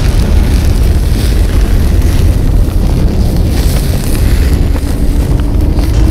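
Big grill flames flaring up under meat held over the grate: a loud, steady deep rumble of fire.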